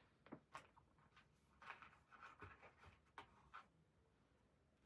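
Near silence with faint, scattered paper rustles and light ticks as printed leaflets are handled.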